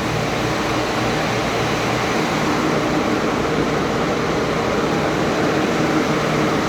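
A fan-driven machine running steadily: a loud, even whoosh of moving air with a faint low hum underneath.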